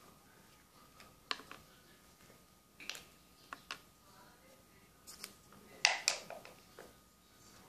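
Small plastic toy pieces handled over a plastic bowl: scattered light clicks and taps, with the loudest pair of sharp clicks about six seconds in.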